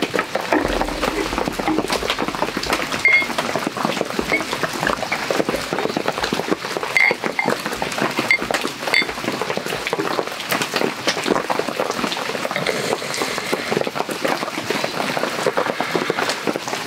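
Heavy rain pattering steadily, with a few light ringing clinks of a glass and beer bottle and, near the end, beer being poured from the bottle into the glass.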